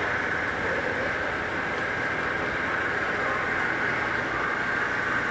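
Metalworking machinery running steadily, a constant mechanical whir and hiss with no breaks.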